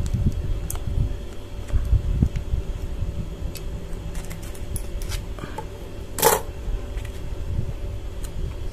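Scissors cutting the corner off a plastic sachet of sweetened condensed milk: a few light clicks and handling sounds, then one short sharp snip about six seconds in. A steady low hum runs underneath.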